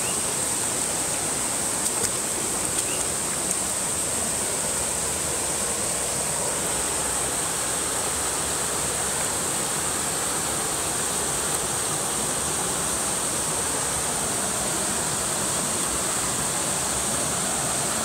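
Small waterfalls of a rocky stream rushing steadily into a pool.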